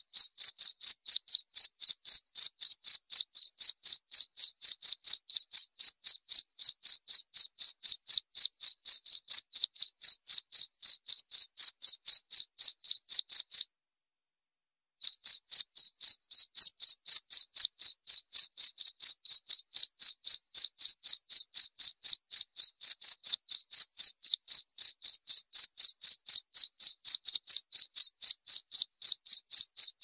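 Cricket chirping: a steady run of rapid, evenly spaced high-pitched chirps, about five a second. It cuts out abruptly for about a second midway, then resumes.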